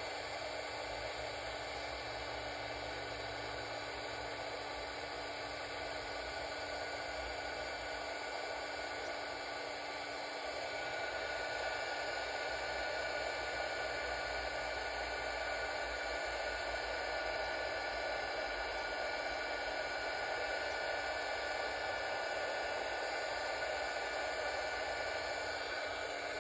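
Embossing heat tool running steadily, a fan hiss with a faint motor whine, melting silver embossing powder. It gets a little louder about ten seconds in.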